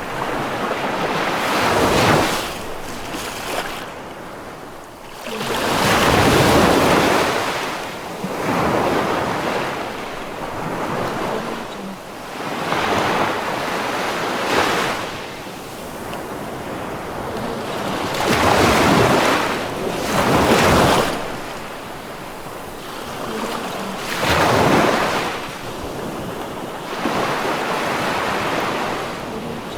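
Rough sea waves breaking and washing back, a loud surge every few seconds over a constant rush of water.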